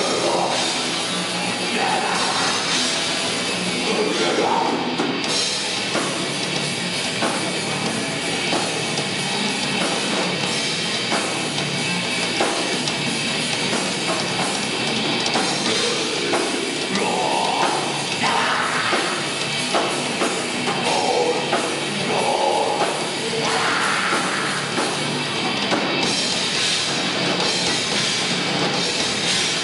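Live rock band playing loud and continuously, with a drum kit and electric guitar.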